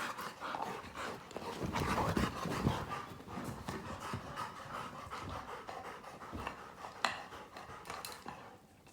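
Labrador dogs panting hard after rough play, with scuffling and one sharp click about seven seconds in.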